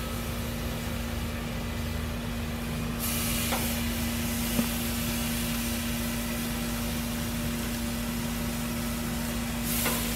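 Jerk-seasoned chicken breasts sizzling on the hot grates of a lit gas grill, the hiss growing stronger about three seconds in as more pieces go down, over a steady low hum.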